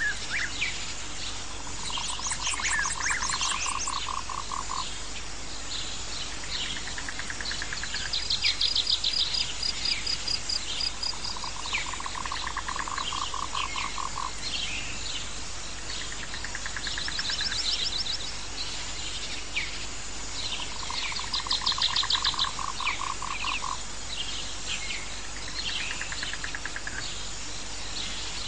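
Nature ambience of many small birds chirping, with a fast high trill and a lower pulsed trill, each lasting two to three seconds and coming back about every nine seconds.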